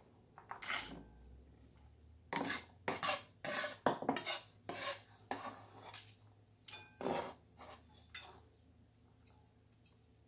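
Chef's knife knocking and scraping on a wooden cutting board as chopped celery is gathered and pushed into a bowl: a run of separate sharp knocks, about two a second, thinning out near the end.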